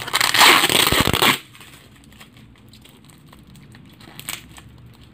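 Blue plastic bag wrapped in clear tape crinkling loudly as it is handled and squeezed for about a second and a half, then a few faint crinkles and taps.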